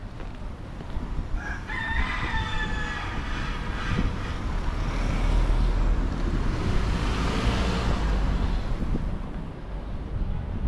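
A rooster crows once, about a second and a half in, over low street rumble; then a motor vehicle passes, swelling to its loudest past the middle and fading again.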